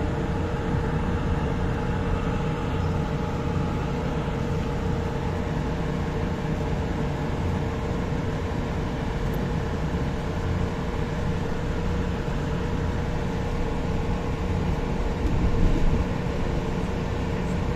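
Light-rail train running along its track: a steady rumble with a faint constant whine, briefly louder near the end.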